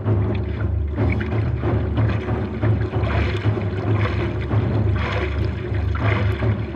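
Hands paddling a prone paddleboard at a sprint: repeated splashes of arm strokes over the steady rush of water along the board, with a continuous low rumble underneath.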